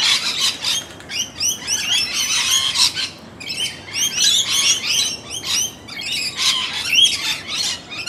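A feeding flock of rainbow lorikeets screeching and chattering, many calls overlapping, with a brief lull about three seconds in.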